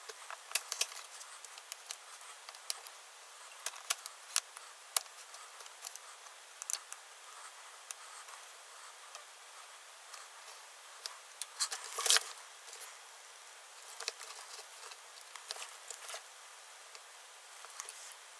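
Light clicks and taps of nickel-metal hydride AAA battery cells being handled and knocked together on a work mat, scattered and irregular, with a louder cluster of clicks and rustling about twelve seconds in.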